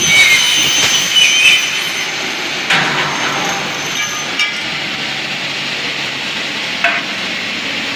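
Double-head aluminium cutting saw running with a steady whirring noise, a high ringing in the first second or two, and three sharp clunks spread through the rest.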